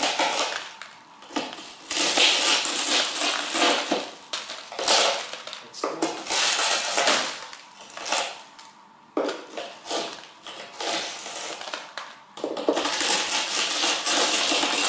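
Broken windshield glass crunching and clinking in irregular bursts as pieces are broken out, with a brief lull a little past the middle.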